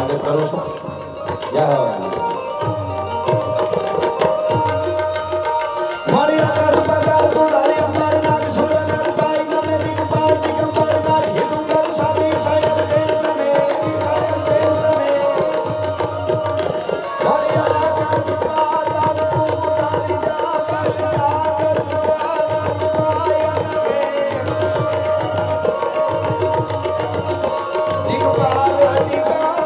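Live Gujarati folk music from a stage band, played through the PA: a steady drum rhythm with held melodic notes above it, and no voice on top.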